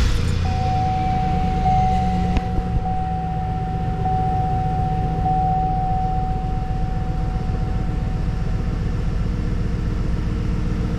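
The 2004 GMC Yukon Denali's 6.0-litre V8 idling steadily just after starting. A single steady high whine sits over the idle from the start and fades out after about eight seconds.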